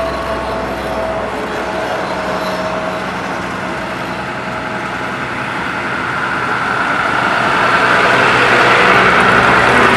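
Road roller's diesel engine running steadily, growing louder from about seven seconds in.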